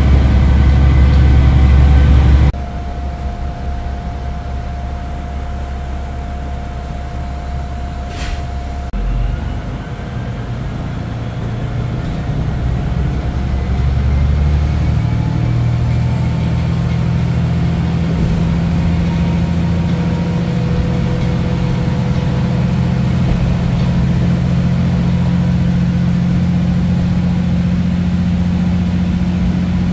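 Diesel train engine running with a steady low hum. It drops suddenly about two and a half seconds in, then grows louder and rises in pitch around twelve to fifteen seconds in, as under acceleration, and holds steady after that.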